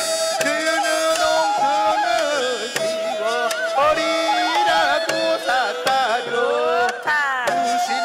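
Korean shamanic ritual (gut) music: a wavering, bending melodic line from a traditional reed or bowed instrument over sharp, repeated drum strokes, playing the dance accompaniment between sung verses.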